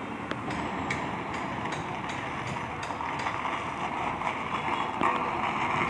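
Steady outdoor road noise with a run of light, sharp clicks about two or three a second.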